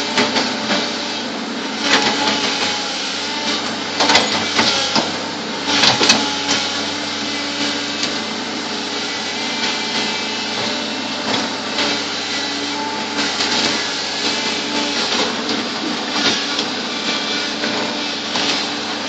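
Bulldozer engine running steadily, with several loud knocks about two, four and six seconds in.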